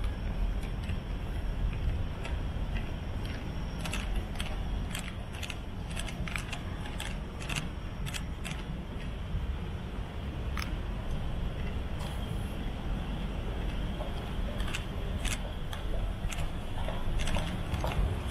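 Night city street ambience: a steady low rumble of traffic with scattered sharp clicks and taps.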